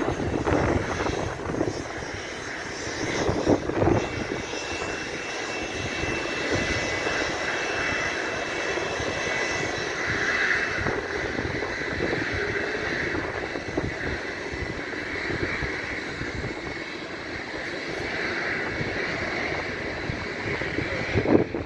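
Embraer Praetor 600 business jet's twin Honeywell HTF7500E turbofans at takeoff power during the takeoff roll, a steady jet noise with a high whine in it for several seconds. Gusts of wind hit the microphone near the start, about three and a half seconds in, and at the very end.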